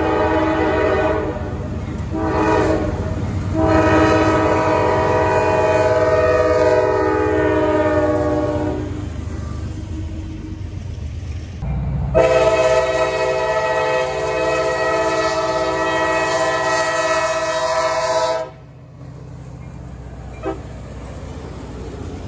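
Freight locomotive air horns sounding chords at grade crossings: a few blasts and a long held one that fades, then after a pause another long blast that cuts off suddenly. A quieter rumble of the train's cars rolling by follows near the end.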